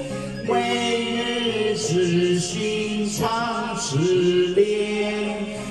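A man's voice chanting a Buddhist sutra through a microphone in long held notes that step from pitch to pitch.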